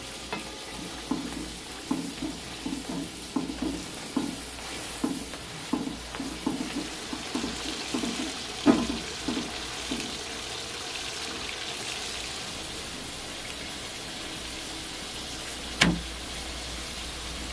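Steady sizzling hiss of food cooking, with a run of soft irregular knocks, about two a second, over the first ten seconds as a utensil stirs in a large metal cooking pot. One sharp knock near the end.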